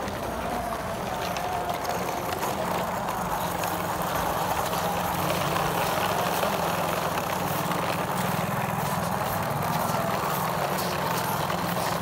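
A steady engine-like drone that wavers in pitch.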